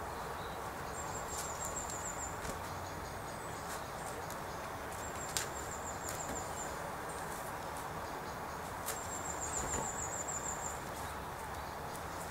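Outdoor garden ambience, a steady hiss, with a high, fast-pulsed trill that sounds three times for about a second each and a couple of sharp taps, the clearest about five seconds in.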